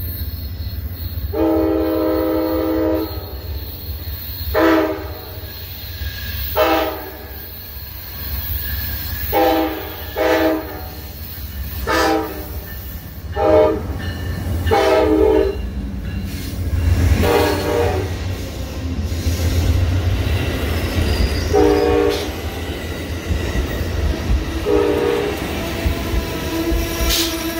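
Amtrak GE P42DC diesel locomotive sounding its horn in about eleven blasts as it pulls its passenger train into the station: the first blast is long, the rest are short and grow weaker once it has passed. A steady low rumble of engine and rolling cars runs underneath, and a steady squeal sets in near the end as the cars go by.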